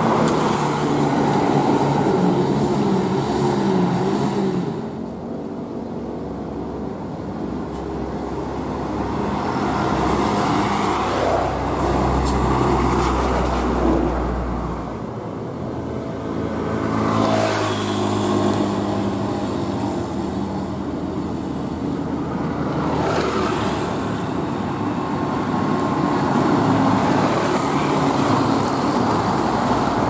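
Large diesel vehicles, a coach bus and heavy trucks, passing close on a road with their engines running over steady traffic noise. A deep low engine drone stands out from about 11 to 15 seconds in.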